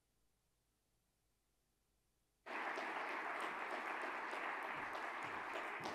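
Near silence, then about two and a half seconds in a large audience starts applauding and keeps up a steady, dense clapping.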